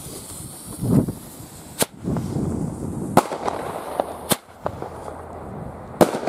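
Firecrackers going off: four sharp bangs spread over several seconds, the second and the last loudest.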